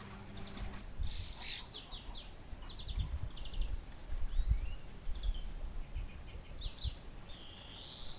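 Small songbirds chirping: short trills and whistles from about a second in, and a longer rising whistle near the end, over an irregular low rumble.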